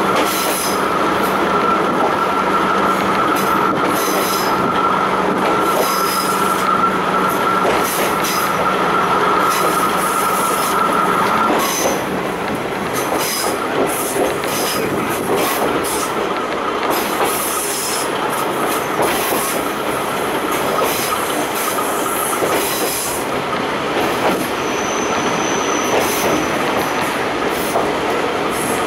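KiHa 52 diesel railcar running along the line, heard from inside the car through an open window: engine and wheel noise with light rattling. A steady tone drops out about twelve seconds in and the overall sound gets slightly quieter.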